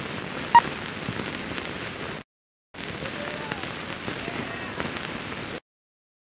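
Steady crackling hiss of an old film soundtrack, cutting out abruptly to dead silence twice, a little past two seconds and near the end. A short sharp tone pops out about half a second in.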